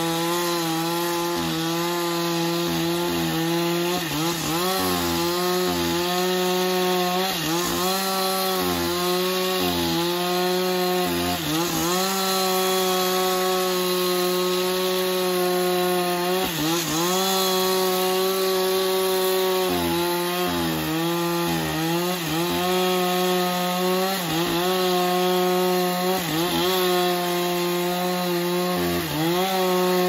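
Sawmill saw cutting timber: a steady machine hum with a whining tone that sags in pitch every second or two, over a constant hiss.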